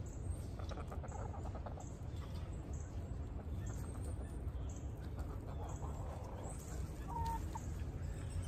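Chickens clucking softly now and then while they forage, over a steady low rumble.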